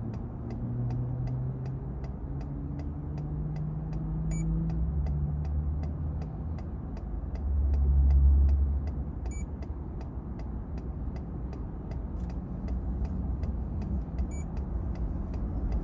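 Steady, even clicking of a truck's flasher, several times a second, over the low rumble of highway traffic. A vehicle passing swells the rumble loudest about eight seconds in.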